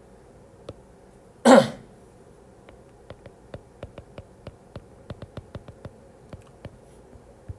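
A man coughs once, about a second and a half in. Then light, irregular clicks of a stylus tip tapping on a tablet's glass screen as words are handwritten.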